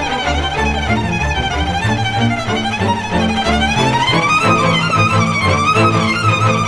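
Instrumental music, a melody with wavering, vibrato-like notes over sustained low bass notes.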